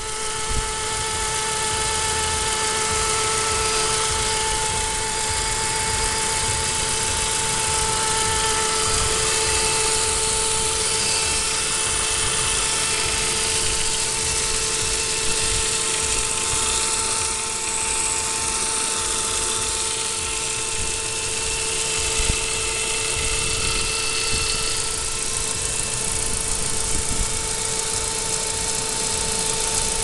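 Saab 9-5's B205 2.0-litre turbocharged four-cylinder engine running, with a steady whine held at one pitch over it: the strange noise the owner is trying to trace.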